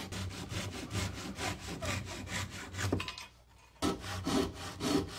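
Hand saw held flat on a stool seat, sawing off the protruding end of a wooden leg and its walnut wedge flush with the top in steady back-and-forth strokes, about two a second. There is a short pause a little after three seconds, then the strokes resume.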